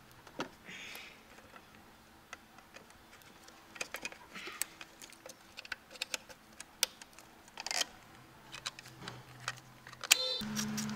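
Gloved hands working on plastic and rubber engine-bay parts around the throttle body make scattered light clicks, taps and rustles. About ten seconds in, a steady hum starts with rapid, even clicking, as of a ratchet being run.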